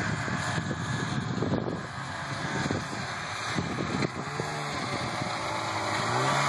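Polaris Indy Trail snowmobile's two-stroke engine running as the sled drives toward the listener, with its pitch wavering and dipping in the second half.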